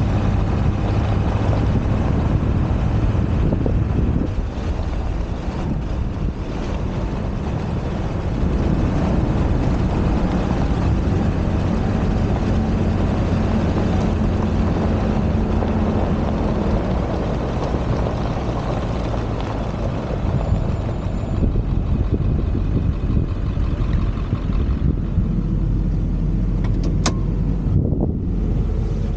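Ford F-250 pickup driving on a dirt road: the engine runs steadily under a constant rush of wind and road noise on the roof-mounted camera. Near the end the sound turns duller, an engine hum heard inside the cab, with one sharp click.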